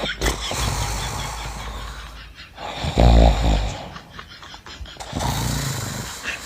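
A man deliberately faking loud snoring to keep someone awake: long rasping breaths, loudest about three seconds in and again near five seconds.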